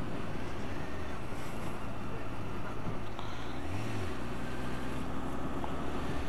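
Honda Fireblade's inline-four engine running steadily on the move, with wind noise on the microphone. The engine note rises and falls once, briefly, about four seconds in.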